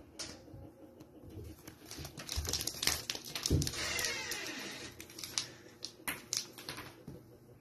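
A kitten's claws scratching and catching on a foam wall panel as it climbs, tearing at the foam: a rapid, irregular run of clicks and scrapes, densest in the middle.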